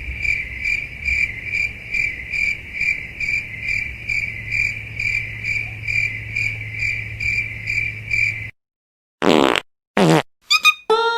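Cricket chirping sound effect, the comic 'awkward silence' cue: a steady high chirp pulsing about two to three times a second over a low hum, cutting off suddenly about eight and a half seconds in. Near the end, after a short silence, two quick swishes and a brief comic effect of falling tones.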